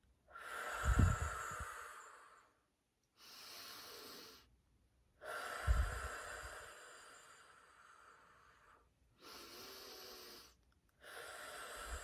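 A woman taking slow, deep cleansing breaths: three long, louder breaths out, each opening with a low thump of air on the microphone and fading away, with shorter, quieter breaths in between them.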